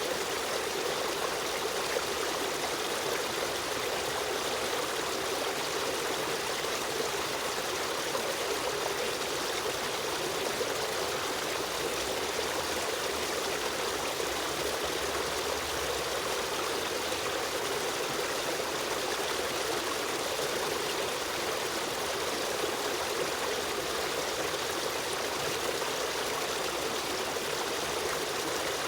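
Stream of running water flowing steadily, a constant rushing and trickling without breaks.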